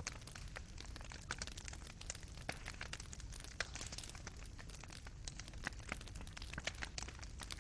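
Fire in a fireplace crackling: burning coals popping and snapping irregularly, several small pops a second, over a low steady rumble.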